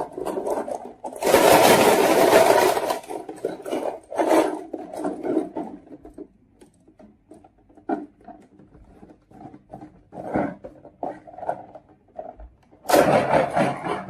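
Marbles rolling and clattering down a wooden marble run: a loud rattling run about a second in, scattered clicks and knocks, then another loud rattle near the end.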